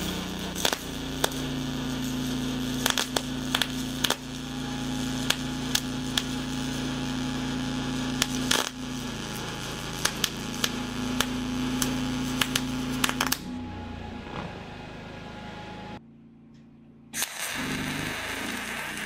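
MIG welding arc running in spray transfer mode: a steady hiss over a low hum, with scattered sharp crackles. The sound cuts out for about a second near the end and then picks up again.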